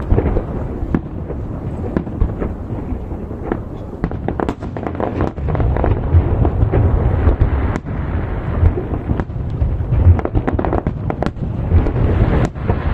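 Fireworks display with shells launched over the sea and bursting: many sharp cracks and bangs in quick succession over a continuous deep rumble of booms echoing back.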